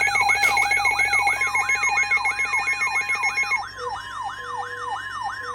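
Several weather alert alarms sounding at once: a falling siren-like sweep repeating about three times a second, over a steady warning tone, with a fast two-pitch warble that stops about three and a half seconds in. After that, short low beeps join in, signalling a flash flood warning broadcast on NOAA Weather Radio.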